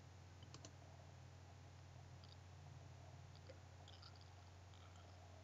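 Near silence: a low steady hum with a few faint mouse clicks.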